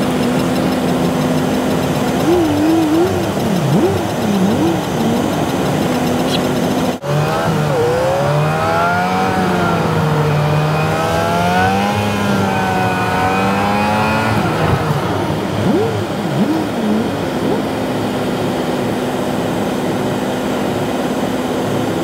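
Car engine idling with a steady hum and a few short revs. After a sudden cut about seven seconds in, an engine revs up and down for several seconds, then settles back to a steady idle.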